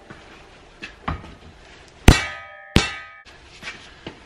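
A hammer striking the steel yoke of a driveshaft clamped in a vise, knocking out the U-joint. A couple of lighter blows come first, then two hard blows about two and three seconds in that ring like metal, then lighter blows near the end.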